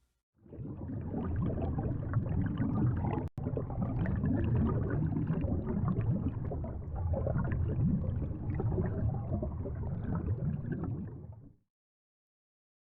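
Sound effect of gurgling, bubbling water, with a brief break about three seconds in and stopping shortly before the end.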